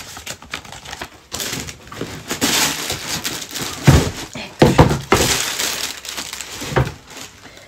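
Cardboard shoebox and crinkly wrapping paper being handled and pulled open, with rustling and crinkling and a few dull knocks of the box, the clearest about four seconds in and near the end.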